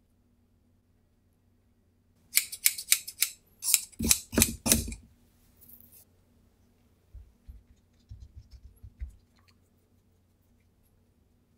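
Scissors snipping through carbon fibre cloth: a quick run of about ten sharp snips over two to three seconds, followed by a few faint low thumps.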